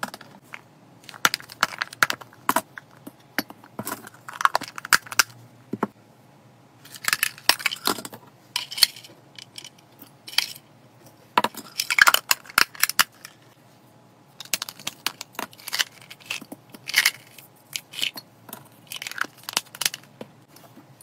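Dry hamster food mix of seeds, grains and freeze-dried pieces being spooned and poured into ceramic bowls: bursts of dry rattling and clinking with short pauses between.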